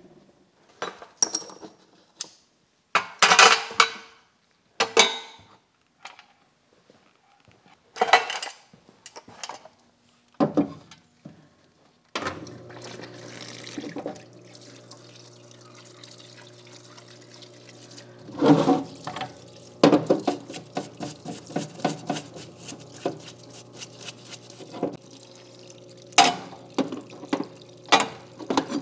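Small steel parts clinking and knocking on a wooden workbench for about twelve seconds. Then a parts-washer pump starts humming steadily, with degreaser running from the flow-through brush and metal parts clinking and splashing in the tank as they are scrubbed.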